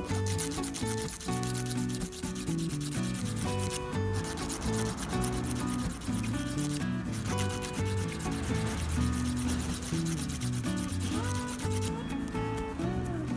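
Small disposable emery nail file rasping against a fingernail in quick back-and-forth strokes, its coarse side shaping the nail edge. The strokes thin out near the end.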